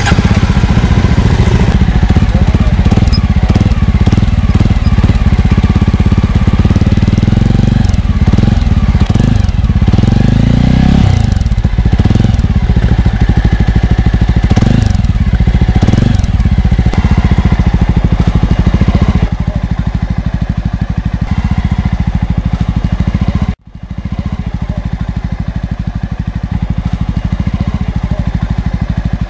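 New Jawa motorcycle's 293 cc single-cylinder engine and exhaust note, revved in a series of blips that rise and fall, then running at a lower, steadier idle. The sound drops out for a moment about 23 seconds in.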